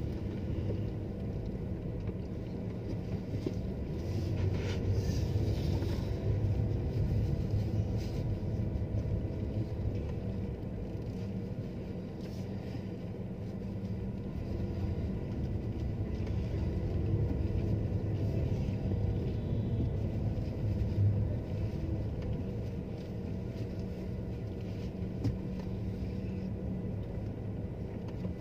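Car engine and road noise heard from inside the cabin while driving: a steady low rumble with a faint hum that swells slightly now and then.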